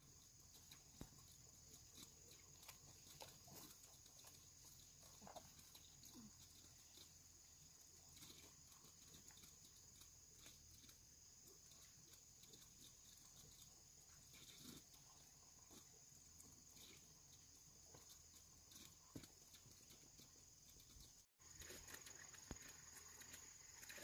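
Near silence: faint outdoor background with a steady high-pitched hiss and scattered faint clicks.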